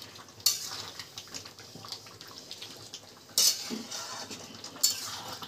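Steel spoon stirring thick chicken gravy in a metal pan, scraping and clinking against the pan with a wet slop of the gravy. Three louder scrapes come about half a second in, about three and a half seconds in and near the end.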